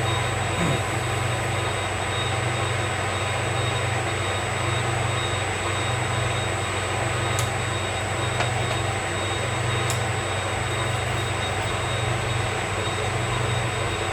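Metal lathe running steadily through a boring cut on a bushing, a low hum that swells and fades in a slow regular pulse under a steady high whine. Two sharp ticks, about seven and ten seconds in.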